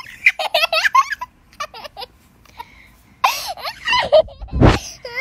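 A small child giggling and laughing in short, wavering bursts, as an intro sound effect, with a brief louder low burst about four and a half seconds in.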